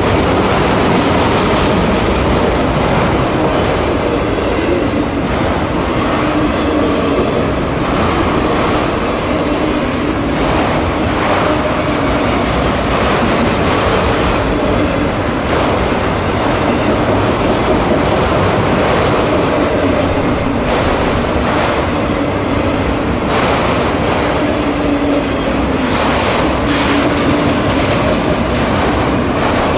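Freight train of autorack cars rolling past a grade crossing: steady, loud noise of steel wheels on rail, with irregular clicks as the wheels pass over rail joints.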